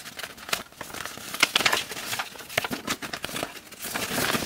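Paper crinkling and rustling as it is handled, with irregular sharp crackles.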